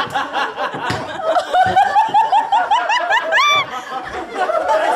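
Audience laughter in quick repeated bursts, with a short high-pitched rising squeal of laughter a little after three seconds in.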